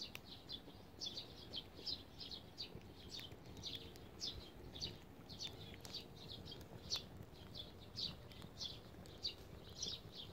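Small birds chirping: a quick, irregular run of short, high-pitched chirps, several a second. Faint pops from a wood-twig fire burning in a grill come through now and then.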